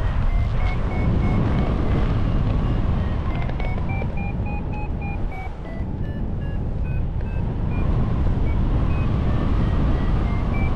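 Heavy wind rumble on the microphone, with a simple melody of short stepped notes playing over it.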